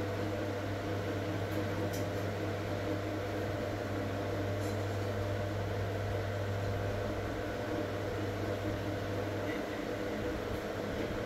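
Steady low hum of a running electric motor, dipping briefly near the end, with a few faint ticks.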